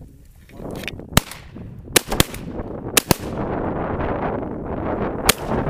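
Shotguns firing at flying ducks: about six sharp blasts over some four seconds, two of them in quick pairs. Heavy wind buffets the microphone throughout.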